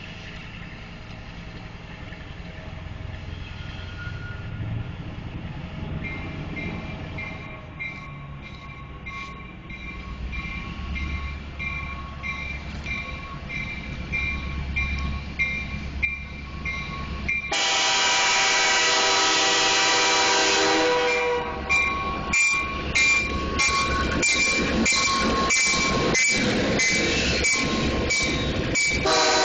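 A 1944 steam locomotive approaching with a low rumble that builds, then its whistle sounds loudly about two thirds of the way in: one long blast, then a run of shorter broken blasts as the train passes close by.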